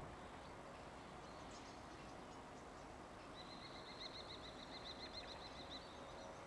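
Faint outdoor background hiss with a small bird singing a quick run of repeated high notes, about six a second, starting about three seconds in and lasting some two and a half seconds; a few fainter chirps come before it.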